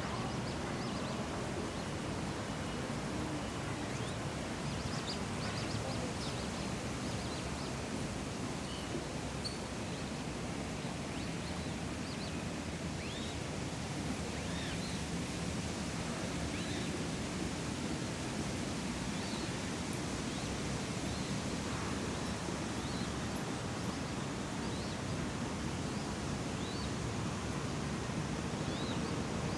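City park pond ambience: a steady breeze with a low background rumble, and short high bird calls scattered throughout.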